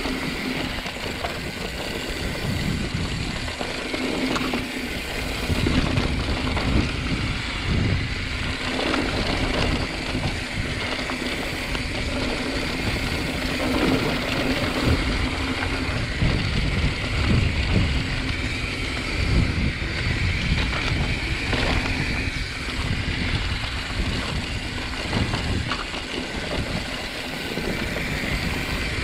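Mountain bike ridden along a dirt trail: steady tyre and trail noise with irregular low jolts and rattles as the bike goes over rough ground, and a faint steady hum underneath.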